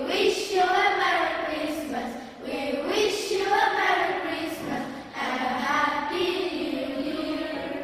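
A class of schoolchildren singing together in chorus.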